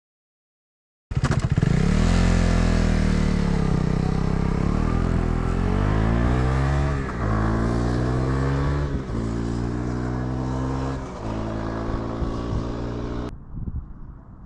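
KTM 390 Adventure's single-cylinder engine running through its exhaust. It starts suddenly about a second in, and its pitch rises and drops back several times as the revs change.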